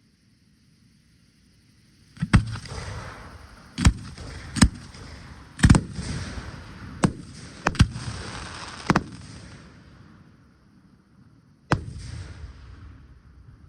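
Aerial fireworks bursting overhead. After a short quiet start comes a quick run of about eight sharp bangs with a crackling hiss between them, then a lull and one more bang near the end.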